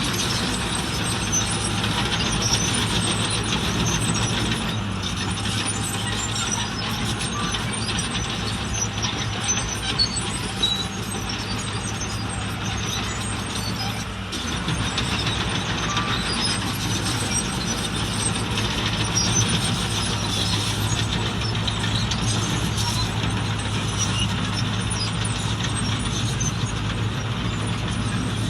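Heavy diesel construction machinery running steadily under load, a constant low engine drone with a noisy rattle and scattered light clicks over it.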